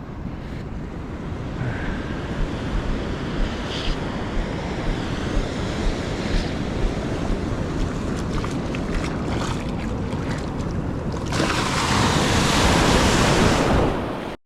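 Ocean surf and wind buffeting the microphone: a steady low rumble of noise, with a louder hissing rush of water near the end that lasts about three seconds. The sound cuts off suddenly at the end.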